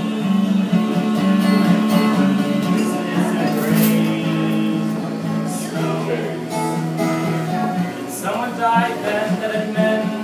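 Acoustic guitar strummed steadily, playing a folk song live with sustained chords.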